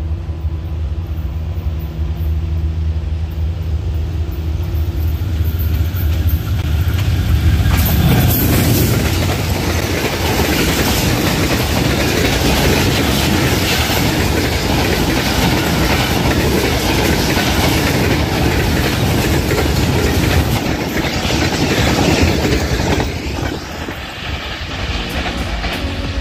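A ZCU-30 diesel-electric locomotive hauling a passenger train approaches with a steady low engine drone and passes at speed about eight seconds in. The coaches then rush by, their wheels clattering over the rails, and the sound eases off near the end as the train moves away.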